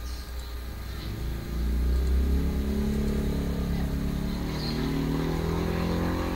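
A motor vehicle's engine, rising and falling in pitch over a low rumble, growing louder about a second and a half in.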